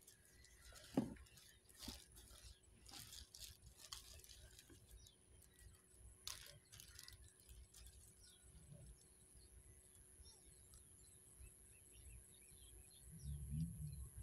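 Near silence: faint riverbank ambience with scattered light clicks, the sharpest about a second in, faint bird chirps in the second half, and a low rumble rising near the end.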